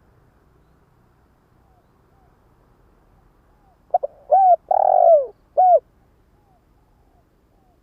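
Decoy spotted dove cooing its song. Faint coos come first, then about four seconds in one loud phrase: a short note, two arched coos, a longer, fuller coo and a final arched coo.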